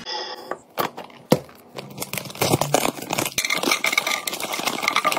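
A plastic gummy-bear bag crinkling and gummy bears pattering into a clear plastic container, with a few sharp clicks, the loudest about a second in.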